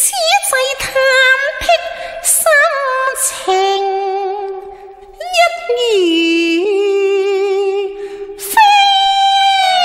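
Female Cantonese opera singing: slow, melismatic held notes with vibrato, with traditional accompaniment. A few sharp percussion strikes come in the first three seconds, and another about eight and a half seconds in.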